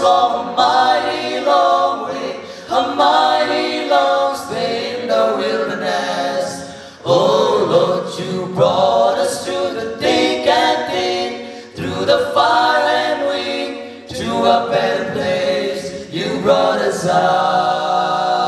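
Four male voices singing a cappella in close harmony into handheld microphones, holding sustained chords in phrases a few seconds long with brief pauses between them.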